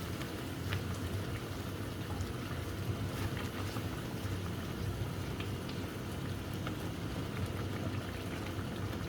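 A masala with whole spices bubbling and frying in a cooking pot, a steady bubbling with small scattered pops.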